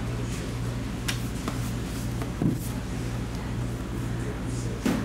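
A cardboard mini-helmet box being handled and lifted off a table: faint clicks and two soft thumps, about halfway and near the end. A steady low electrical hum runs under it.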